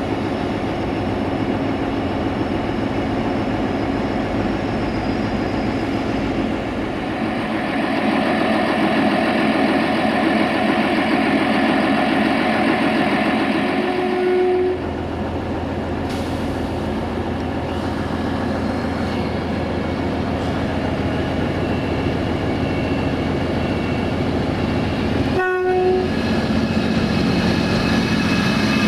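Diesel multiple unit running through the station, a VT614 railcar with steady engine and wheel noise. It gives a short horn toot about halfway through and another near the end.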